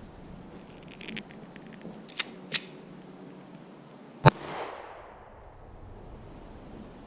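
A few metallic handling clicks, then a single pistol shot from a Ruger-57 chambered in 5.7x28, with its echo trailing off over about a second.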